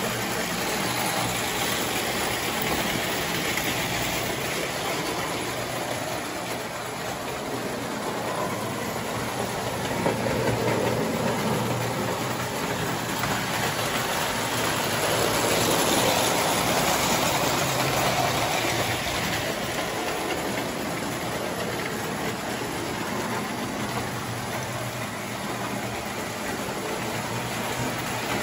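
Prewar tinplate electric toy trains running on three-rail track, a steady rolling rumble that swells about a third of the way through as a train passes close, then eases off again.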